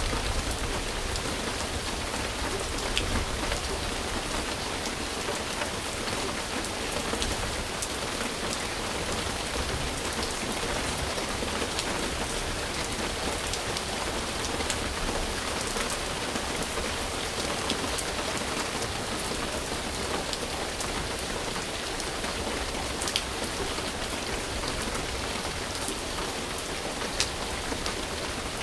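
Steady rain falling on a surface, a constant hiss with scattered individual drop ticks and a couple of sharper drips near the end.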